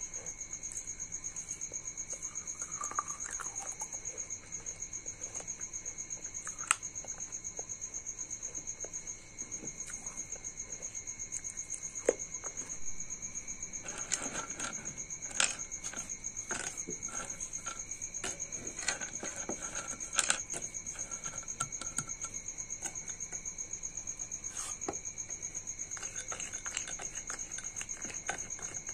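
Scattered sharp clicks and crackles of broken slate-pencil pieces being crumbled and worked into a white paste, busiest in the middle. A steady high-pitched pulsing chirp runs underneath.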